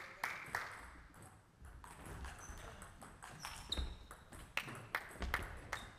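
Table tennis ball clicking off the rackets and table in a rally. There are two hits at the start, a lull of about a second and a half, then a quick run of hits, with short high squeaks of shoes on the hall floor in between.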